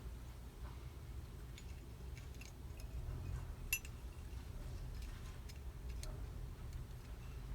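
A handful of faint, light clicks and taps of small carburetor parts being handled and set down during assembly, the sharpest about halfway through, over a steady low hum.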